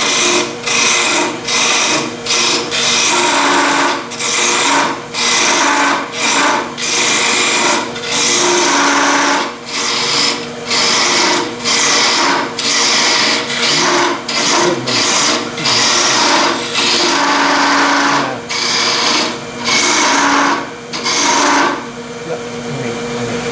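Parting tool cutting into a spinning wooden blank on a wood lathe, in short scraping passes about one a second, over the steady hum of the lathe motor. The cutting stops near the end and the lathe keeps running.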